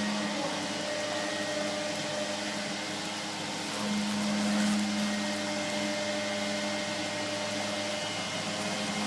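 CNC router spindle running steadily as it carves, a broad machine hiss with a steady hum that swells briefly about four seconds in.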